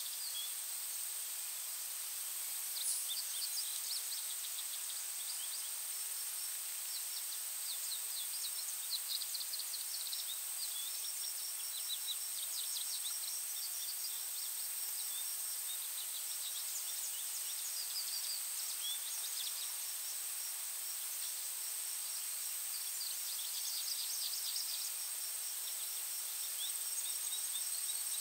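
Woodland birds singing, with short chirps and quick trills coming and going, over a steady high-pitched insect drone.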